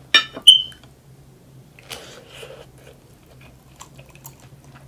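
Two or three sharp clinks just after the start, the last ringing briefly like a ceramic bowl being struck, then faint mouth sounds of chewing fresh strawberries.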